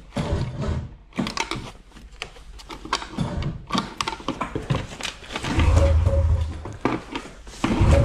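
A 1998 Polaris Indy 500 snowmobile being pull-started: several rasping yanks of the recoil starter rope, then a low rumble from about five and a half seconds in as the two-stroke engine begins to catch.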